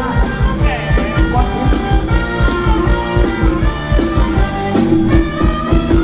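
Live band playing Thai ramwong dance music, a fast steady beat of about three beats a second under a held melody line.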